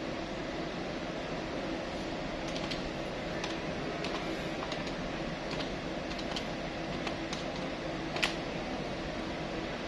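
Desktop calculator keys pressed one at a time with a pen tip: a dozen or so light, irregular clicks, the sharpest about eight seconds in, over a steady fan-like hum.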